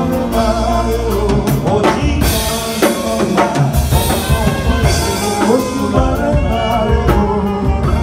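Live band playing with a male vocalist singing into a microphone through PA speakers, over a heavy bass line, keyboard and steady drum hits.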